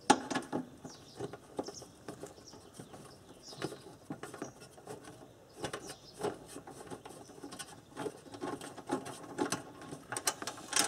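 Irregular clicks, taps and light rattles of a hand tool and plastic parts being handled in a car's engine bay as the air-intake box's screws are undone, with the sharpest click right at the start and a cluster near the end.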